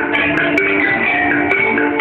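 Javanese gamelan ensemble playing: tuned bronze metallophones strike a steady run of notes that ring on and overlap one another.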